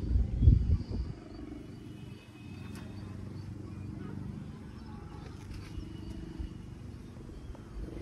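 Wind buffeting the microphone, heard as a gusty low rumble that is loudest in the first second and then settles to a steadier, quieter rumble.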